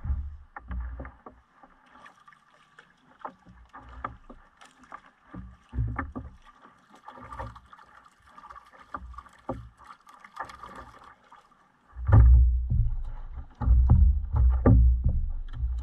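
Scattered knocks and bumps on a plastic kayak and its camera mount while a fish is reeled in, with faint water noise. About twelve seconds in, a loud low rumble with repeated knocks takes over and stays loud.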